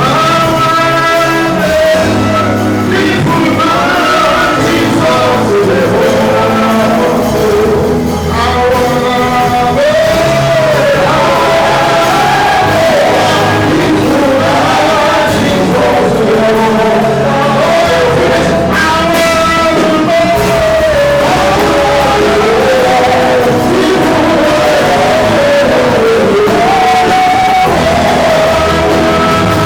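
Live church worship music, loud and steady: singing voices carry a melody over a band with a sustained bass line and drums, in a large reverberant hall.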